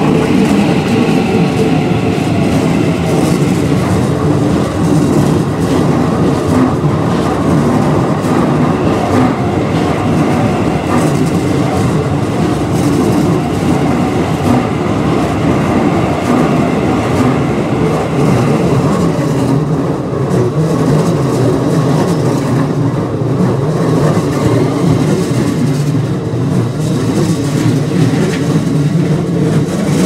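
Keikyu 1000-series electric commuter trains passing close by over a level crossing: a loud, steady rumble of wheels on the rails.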